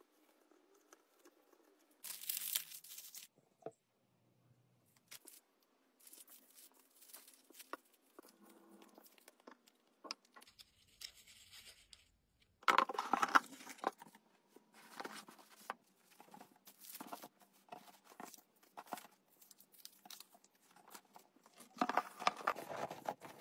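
Quiet handling noises of paper and fabric packaging: tissue paper and wrapping paper rustling and crinkling, and a burlap pouch being handled, in short bursts with small taps and clicks between. The loudest bursts come about two seconds in, around thirteen seconds, and near the end.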